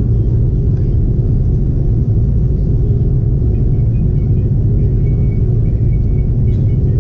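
Steady low rumble of an Airbus A330 taxiing, with its jet engines and airframe heard from inside the cabin.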